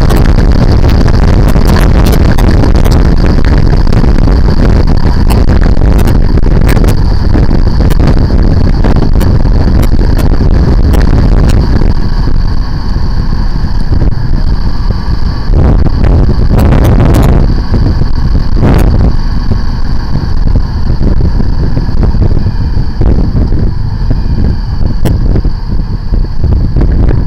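Motorcycle riding at road speed, heavy wind rush on the microphone with the engine underneath; the rush eases about halfway through as the bike slows.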